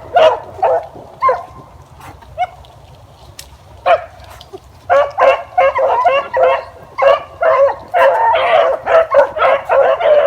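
Pack of beagles baying on a rabbit track with quick, repeated barks. After the first second the barking thins to a few scattered barks for about three seconds, then the hounds open up again in a steady stream to the end.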